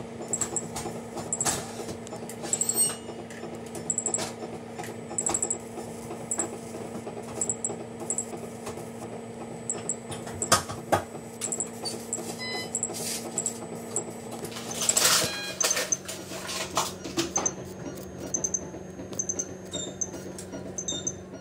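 Electrosurgical scalpel (electrocautery) working on a dog's overgrown sublingual tissue: a steady electrical hum with irregular crackling clicks as the electrode cuts, and short high beeps now and then. The hum drops slightly in pitch about fifteen seconds in, as the work turns from cutting the tissue away to stopping the bleeding.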